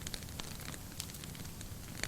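Wood fire burning in a fireplace, crackling with scattered irregular pops over a low steady rumble of the flames.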